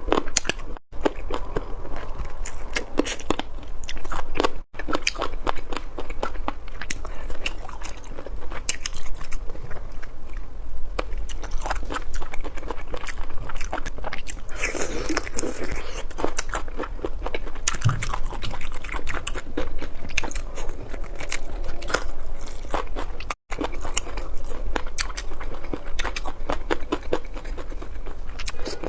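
Close-up eating sounds: continuous biting and chewing of chicken paya, with many small crunchy clicks, cutting out abruptly three times.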